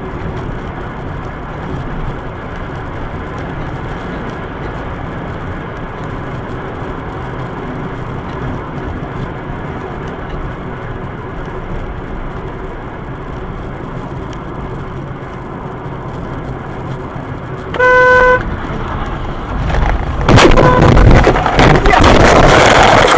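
Steady engine and road noise in a moving car, then a short car horn blast about three quarters of the way in. About two seconds later a much louder, rough, crackling noise starts and runs for several seconds, with a second brief horn note at its start.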